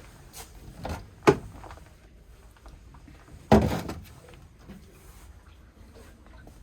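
Two knocks inside a narrowboat cabin, as of something being handled or shut: a sharp one about a second in and a louder bang with a short tail about three and a half seconds in.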